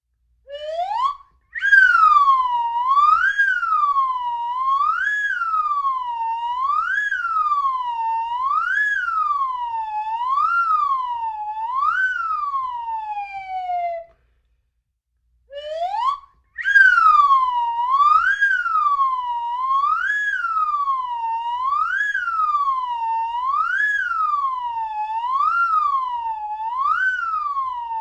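Slide whistle played continuously, its pitch sweeping up and down in a steady wave about once every two seconds, like a siren. It plays in two runs, each opening with a quick upward slide, with a break of about a second and a half halfway through; the first run ends on a long downward slide.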